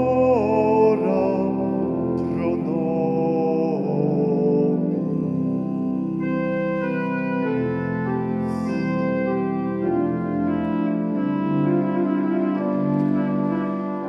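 Organ music in sustained chords that change every few seconds.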